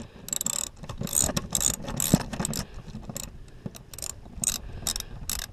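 Hand socket ratchet with a 14 mm socket clicking in short runs as it tightens a seat-mount bolt.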